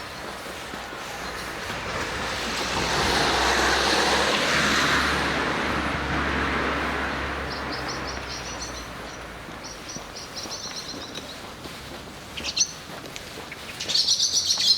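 A car passes, its tyre and engine noise swelling and fading over several seconds. Then small birds chirp in quick runs of high notes, loudest near the end.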